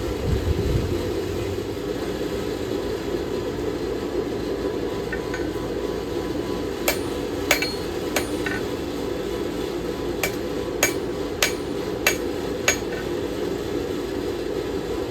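A hammer striking metal with sharp, ringing taps, about eight of them at a steady pace in two short runs, starting about halfway through. Under the taps is a steady roar.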